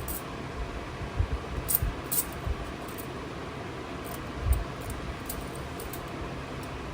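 Steady low hiss of room noise, with a few scattered soft low bumps and faint high clicks.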